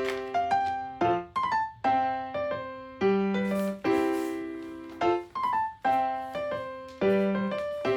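Background music: a light keyboard tune of short, decaying piano-like notes, its phrase repeating about every two seconds.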